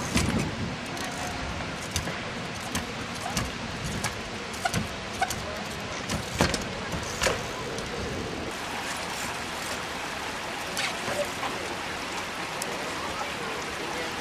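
Trials bicycle hopping and landing: a string of sharp knocks and clacks from tyres and frame striking ramps and wooden rails, loudest about the start and thinning out after the first half, over a steady background hiss.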